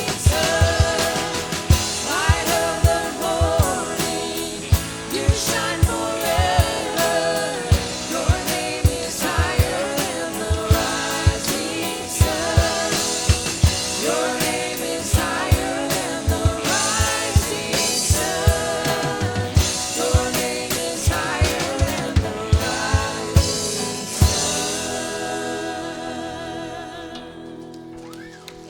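Christian worship music with singing over a drum kit, the drum hits keeping a steady beat. The song fades out over the last few seconds.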